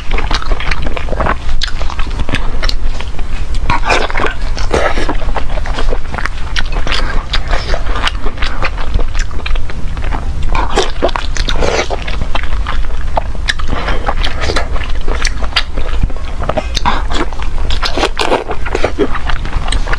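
A person biting and chewing a large spice-coated blood sausage in pig-intestine casing, close to a clip-on microphone: an irregular, continuous run of bites, chewing and mouth smacks.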